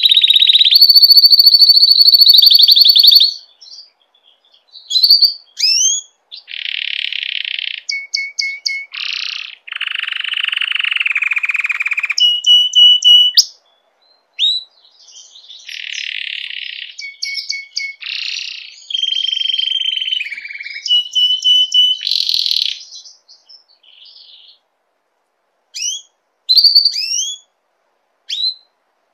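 Domestic canary in breeding condition singing: fast trills and rolls held for a second or two at a time, with rapid repeated notes and quick rising chirps between phrases. The song thins out near the end to scattered short rising notes with brief pauses.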